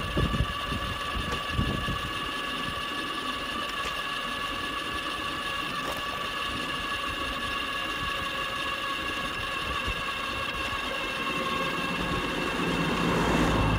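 Wheelchair trike's electric drive motor whining steadily at one pitch while riding, over a low uneven rumble from the road; the rumble grows louder near the end.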